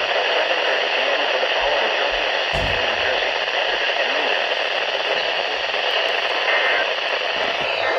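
Steady radio static hiss from a receiver tuned to a weak or empty signal, cutting off just before the end.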